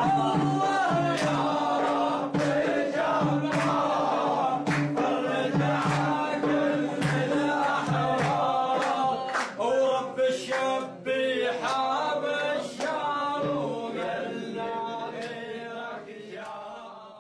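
A group of men singing a Syrian revolution protest chant together, with sharp claps in an even beat about once a second. It fades out near the end.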